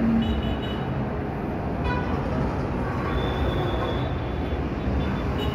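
Steady road-traffic noise with a few short, higher tones over it, like vehicle horns.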